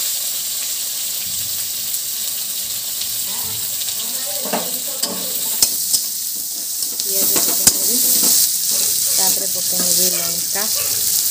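Sliced onions sizzling in hot oil in an iron kadai, with a metal spatula stirring and scraping against the pan and giving a few sharp clicks. The frying grows louder about seven seconds in, once the stirring starts.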